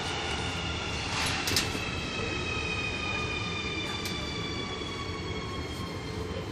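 Underground metro train with its electric drive whining in several tones that fall slowly in pitch as it slows, over a steady rumble of wheels on rail. There are a couple of brief clatters about a second in.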